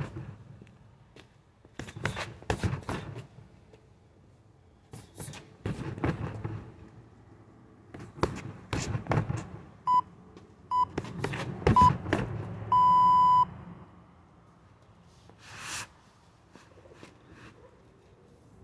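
Strikes thudding against a freestanding heavy bag in quick clusters every few seconds, and an electronic interval timer beeping three short beeps then one longer beep, the usual signal for the end of a round.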